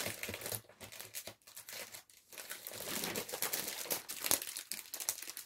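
Plastic wrapper on a cross-stitch kit crinkling as it is handled and pulled off, in irregular crackles with a few brief pauses.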